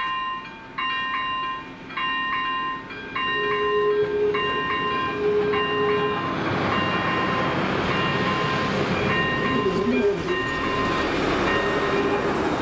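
Level-crossing electronic warning bells ringing a repeated chime about once a second while a diesel passenger railcar gives two horn blasts a few seconds in. From about halfway through, the train's engine and wheel noise rises as it runs through the crossing, with the bells still ringing.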